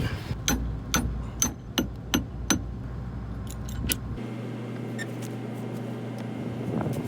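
Sharp metallic clicks and clinks, about two a second for the first four seconds, from hand tools and nuts being worked on a combine corn head's point. The combine's engine runs steadily underneath.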